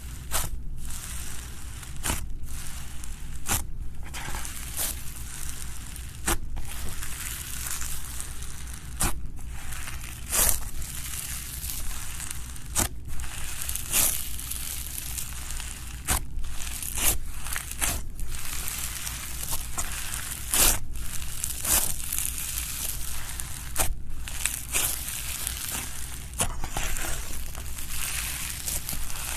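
Slushee slime being squished, making a continuous crackling and crunching with frequent sharp pops.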